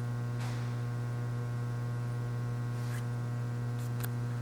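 Steady low electrical hum with a few even overtones, holding one pitch and level. A few faint brief rustles occur near the start and toward the end.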